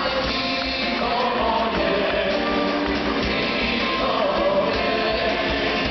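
Live band music with a man singing into a microphone, playing on steadily.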